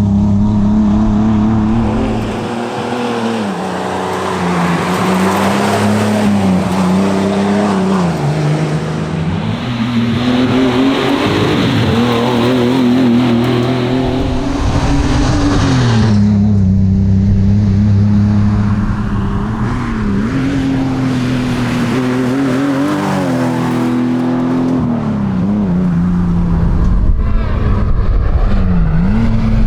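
1979 Ford Cortina Mark IV rally car's engine driven hard, its revs climbing and dropping again and again as it accelerates, shifts and lifts off through a stage.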